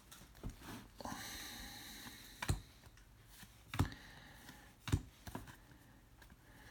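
Trading cards being handled after a pack is opened: a soft rustle of cards sliding against each other, then three sharp taps about a second apart as cards are set down or squared.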